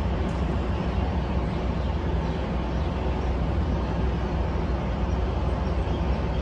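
Steady low rumble of road traffic passing over an elevated concrete bridge, with no single vehicle standing out.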